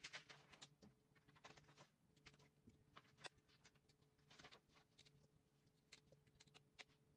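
Faint, irregular crackling and snapping of broccoli florets being broken off the stalk by hand, with a low steady hum underneath.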